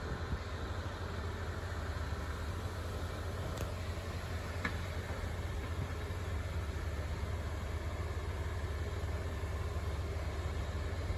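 Steady low rumble of heavy diesel equipment running, with a faint clink about four and a half seconds in.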